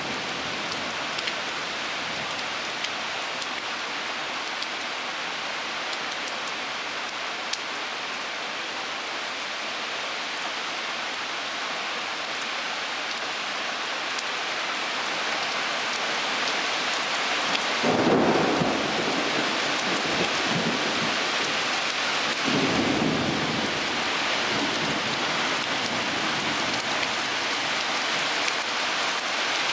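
Heavy rain falling steadily, growing heavier about halfway through. It is broken by a sudden clap of thunder about 18 seconds in and a second, longer rumble of thunder a few seconds later.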